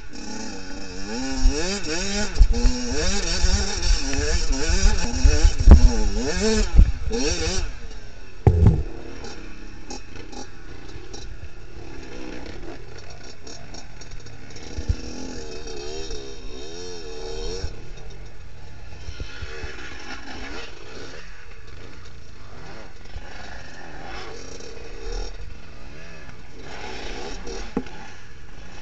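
Off-road motorcycle engine revving hard, its pitch rising and falling quickly as the throttle is worked over rough ground, with scraping and clatter. After a thud about eight seconds in, it settles to slow, low running as the bike creeps up a rocky climb. The engine picks up again in short bursts of throttle now and then.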